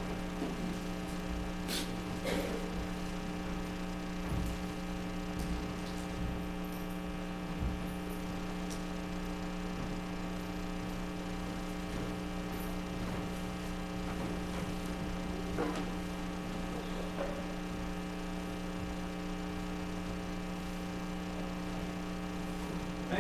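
Steady electrical mains hum, with a few faint clicks near the start.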